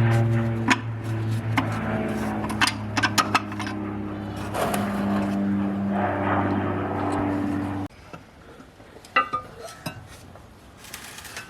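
Metal tools and bolts clinking and scraping while the engine sump is unbolted, over a steady hum that cuts off suddenly about eight seconds in.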